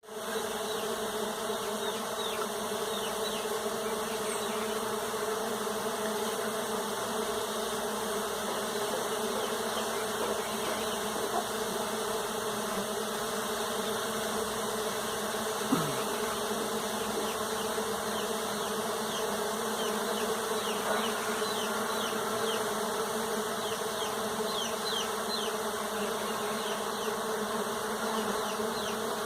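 Many bees buzzing together in a steady, continuous hum, with a brief knock about sixteen seconds in.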